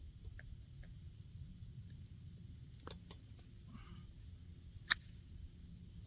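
Scattered small metallic clicks and a short rustle, then one sharp, louder click about five seconds in: the pistol being handled while a jam is cleared.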